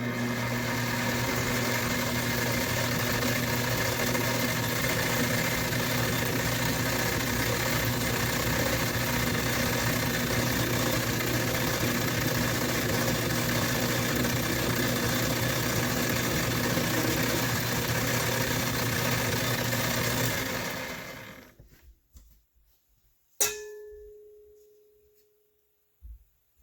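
Small metal lathe running steadily while a 20-thou turning cut is taken on a quarter-inch rod, a motor hum and whine with a broad hiss, spinning down about 21 seconds in. A single metallic clink with a brief ringing tone follows a couple of seconds later.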